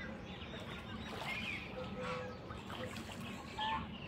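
Ducks calling: scattered short calls and chirps over a steady background hiss.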